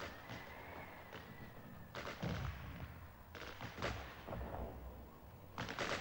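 Battle gunfire in a war-film soundtrack: scattered single shots, with rapid bursts about two seconds in, between three and a half and four seconds, and a heavier burst near the end.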